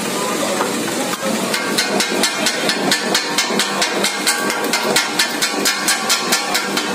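Two flat steel blades chopping kothu parotta on an iron griddle, clanking against the metal in a quick steady rhythm of about four or five strikes a second, starting about a second and a half in.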